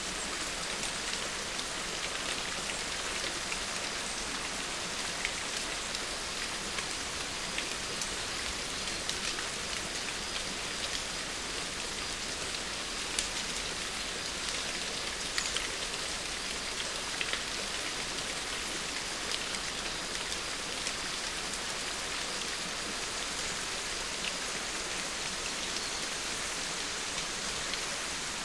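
A steady hiss with scattered faint ticks throughout.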